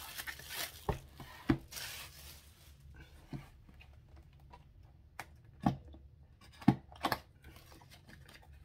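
Plastic shrink wrap crinkling and tearing as it is pulled off a cardboard kit box, followed by several sharp knocks and taps, about a second or more apart.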